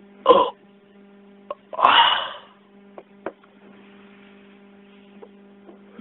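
A person voicing fight sound effects with the mouth for a toy-figure duel: a short sharp burst just after the start, then a longer breathy burst about two seconds in. A few faint clicks of plastic figures on a wooden desk, over a steady electrical hum.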